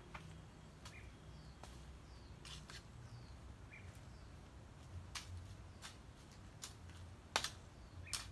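Hand hoe chopping into wet soil: irregular short thuds and scrapes of the blade, the loudest about seven seconds in, with a few faint bird chirps.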